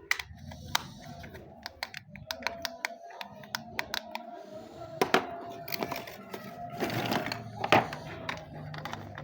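Toy packaging being handled during an unboxing: a run of sharp clicks, snaps and crackles of plastic and cardboard, with a faint steady tone underneath from about two seconds in.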